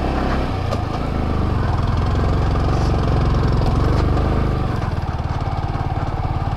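Yamaha R15 V3 motorcycle's single-cylinder engine running under load, its revs rising about half a second in and easing off at about four and a half seconds.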